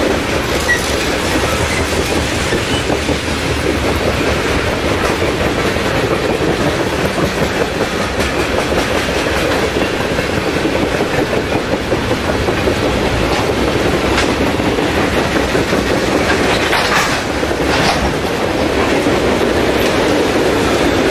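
Freight train rolling steadily along the rails. A couple of brief, sharper, higher sounds come about three-quarters of the way through.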